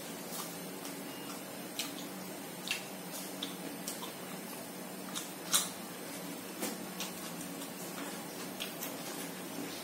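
A person eating with wet chewing and lip-smacking sounds, with scattered short sharp clicks, the loudest about five and a half seconds in, over a steady low hum.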